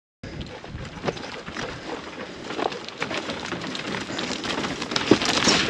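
A mob of sheep shuffling and trotting into a shed: an irregular scatter of hoof and foot clatter on dirt over a steady rustling background, cutting in suddenly a moment in.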